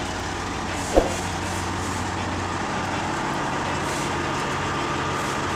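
Caterpillar D8T bulldozer's diesel engine idling steadily, with one sharp knock about a second in.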